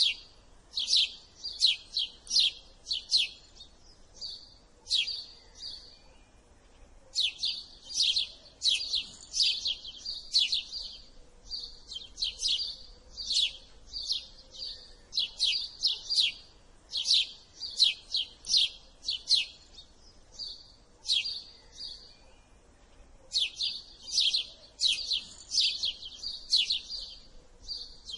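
Male house sparrow chirping: runs of sharp, high chirps, several a second, in bouts broken by short pauses.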